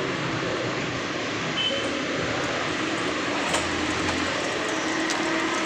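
A steady mechanical hum with a low drone running under it, and a few light clicks in the second half.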